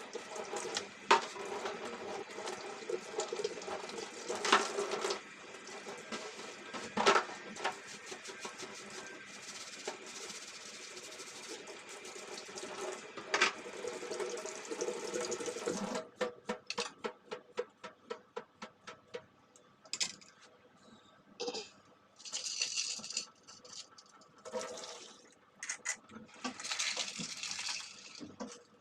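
Tap water running into a kitchen sink while items are washed, with a few sharp clinks and knocks. About halfway through the running water stops, giving way to quick light clicks and short spurts of water.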